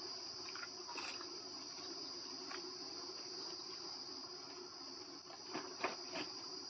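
Steady high-pitched chirring drone, insect-like, with a few soft clicks a little before the end.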